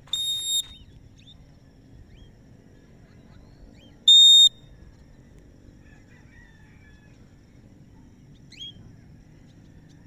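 Two short, loud whistle blasts, each a single steady high note, about four seconds apart, sounded to call a free-flying cockatiel back. A few faint bird chirps come in between.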